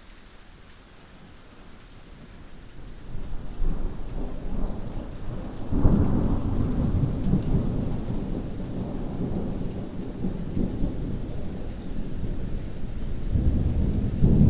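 Thunder rumbling over steady heavy rain. The rumble builds from a couple of seconds in, breaks into a sharp, loud clap about six seconds in, and keeps rolling before swelling again near the end.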